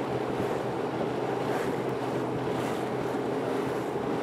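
Water rushing and splashing along a racing sailboat's hull as it sails at speed, with wind buffeting the microphone and a steady low hum underneath.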